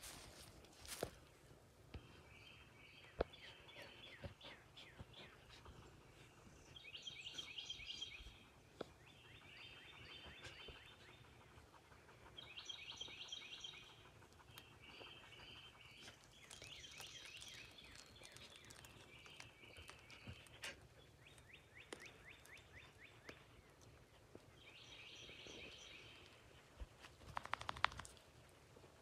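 Faint songbirds singing: short trilled phrases repeated every couple of seconds, with a brief louder noise near the end.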